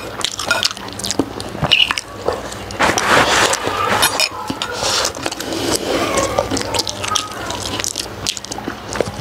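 Close-miked chewing and eating sounds from a person eating soft steamed pig skin with rice, with many short wet clicks and squishes at an irregular pace.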